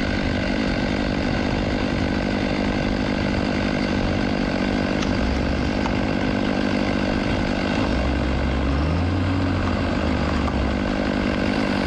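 John Deere 648H skidder's diesel engine running steadily as it moves through the woods dragging logs, with a deeper engine note coming in for a couple of seconds about eight seconds in.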